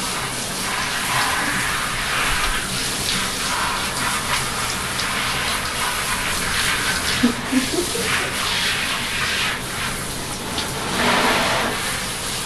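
Handheld shower sprayer running steadily, water spraying onto a long-haired dog's wet coat and splashing into a bathtub.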